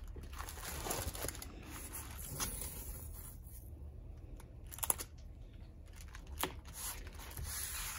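Faint rustling and crinkling of a diamond painting's plastic cover film as a hand presses and smooths a strip of glitter washi tape along it, with a few sharp ticks, the clearest about five seconds in.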